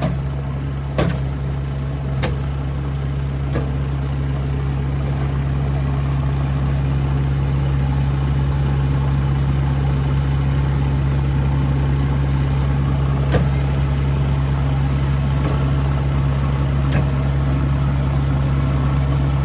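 Diesel engine of a heavy machine idling steadily, with a hiss of falling rain and a few sharp ticks over it.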